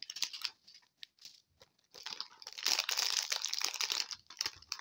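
Crinkly packaging rustled and crumpled by hand as a kit is unpacked: scattered light crackles, then a dense stretch of crinkling starting about two and a half seconds in and lasting over a second.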